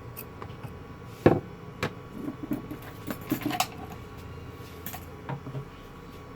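Scattered small clicks and taps of hard objects being handled on a workbench, with one sharp click about a second in, over a steady low hum.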